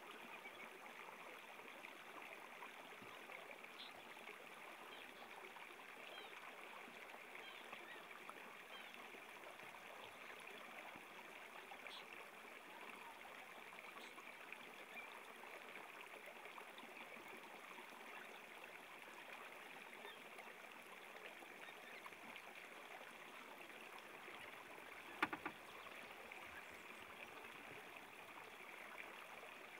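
Near silence: a faint, steady hiss of background noise, with one sharp click about 25 seconds in.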